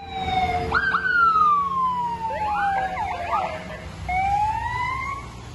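Police car siren sounding, its pitch jumping up and falling in a long wail, then a burst of quick yelps, then rising again, over a low engine rumble.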